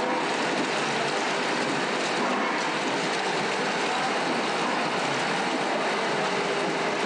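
Steady workshop noise: a constant rushing hiss with a faint hum underneath, unchanging throughout.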